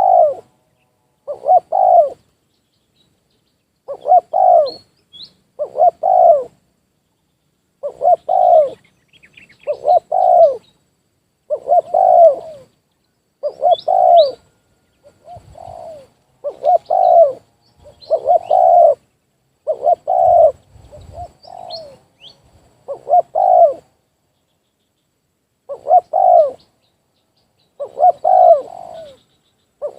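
Spotted doves (tekukur) cooing over and over, a short coo phrase every second or two with brief pauses, as a decoy and a wild bird call. A few faint high chirps from small birds sound now and then.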